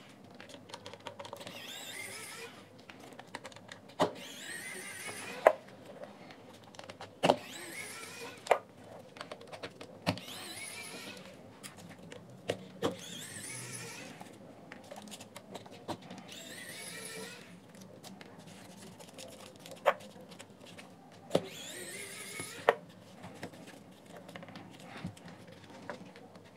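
Electric precision screwdriver backing out small screws, its motor running in short whines of about a second each, about eight in all, each rising in pitch. Sharp clicks fall between the runs.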